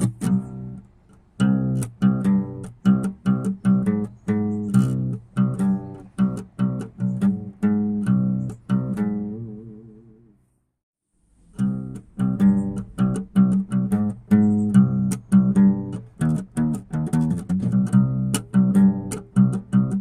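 Instrumental background music of plucked notes in a steady rhythm. It fades out about ten seconds in, falls silent for about a second, then starts again.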